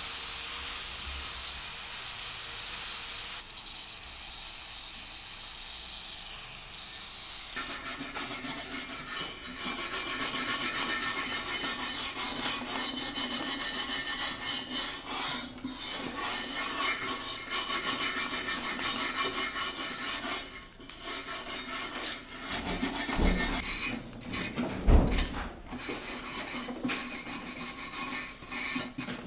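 Hand brush, likely wire-bristled, scrubbed fast back and forth over the surface of a metallic-finished sculpted face, a dense rapid scratching that starts about a quarter of the way in after a steady hiss. A few dull knocks come about three-quarters through, the loudest of them standing out above the brushing.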